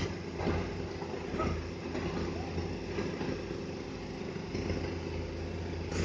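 Truck crane's diesel engine running steadily, a low even drone.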